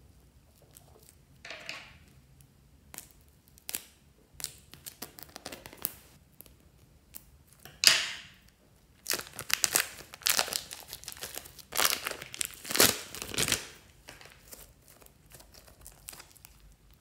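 Plastic piping bags filled with slime crinkling and crackling as hands grip, squeeze and peel them. Scattered crackles at first, then one sharp rustle just before the middle, followed by a long run of dense crackling plastic.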